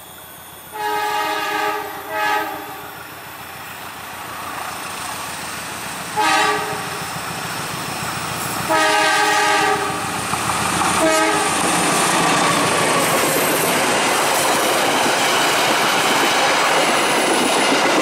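Horn of a KAI diesel locomotive giving several warning blasts as the train approaches: a blast of about a second, a short one, another short one about 6 s in, a longer one about 9 s in and a brief last one near 11 s. Then the loud, steady noise of the locomotive and passenger coaches rolling past close by.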